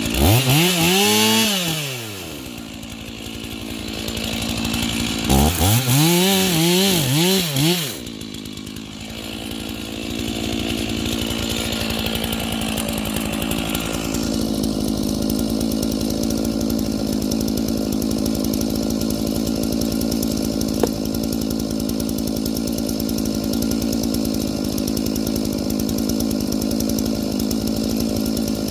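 Chainsaw engine revved once, then blipped about four times in quick succession, before settling into a long, steady run from about halfway through. A single sharp click sounds over it near the end.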